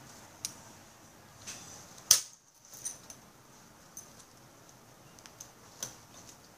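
Plastic pen parts clicking and tapping as they are handled and set down on a table, in a few separate clicks; one sharp click about two seconds in is by far the loudest.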